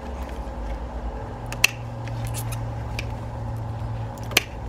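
Bypass pruning shears snipping through plum branches: two sharp cuts, about a second and a half in and near the end, with fainter clicks of the blades between.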